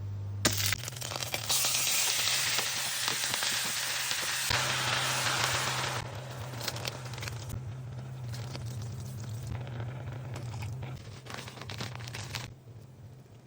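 Food sizzling in a hot frying pan: loud for the first several seconds, then a quieter crackling sizzle that dies down near the end, over a low steady hum.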